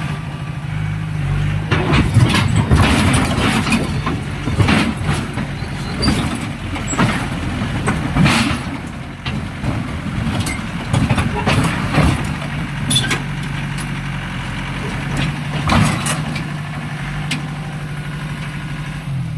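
Bulldozer's diesel engine running, with a run of irregular clanks and knocks through the middle. Over the last few seconds only the steady engine remains.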